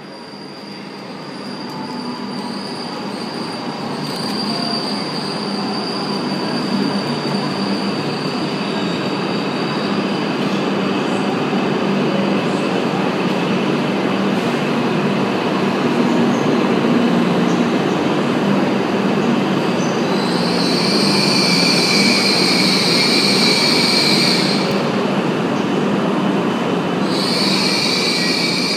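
Hokuriku Shinkansen train (E7-series type) running in along the platform and slowing, its wheel and motor noise building as it comes in. A high squeal of the brakes sounds for about four seconds two-thirds of the way through, then again near the end as it nears a stop.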